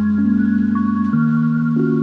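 Background music: soft ambient electronic music with held chords and a mallet-like melody, the notes changing every half second or so.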